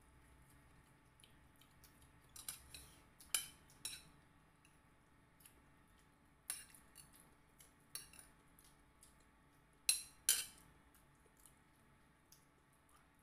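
Quiet table sounds while eating, with scattered sharp clinks of a metal spoon against a ceramic bowl and plate. The loudest two clinks come close together about ten seconds in.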